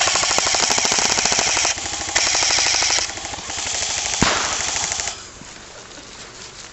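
Airsoft electric guns firing on full auto: three long bursts of rapid, evenly spaced shots, stopping a little after five seconds in.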